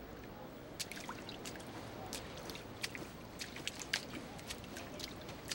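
Water trickling and dripping, with irregular small sharp drips over a faint steady wash.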